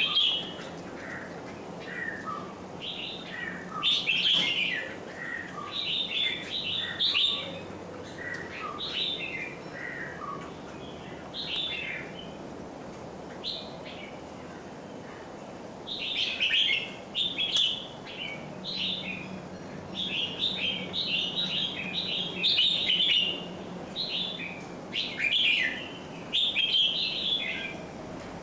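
Small birds chirping, with many short, quick calls in overlapping bursts and a brief lull about halfway through.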